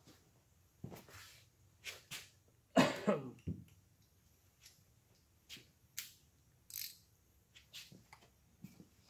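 Scattered clicks and knocks of metal engine parts and tools being handled during assembly, with one louder, longer noise about three seconds in.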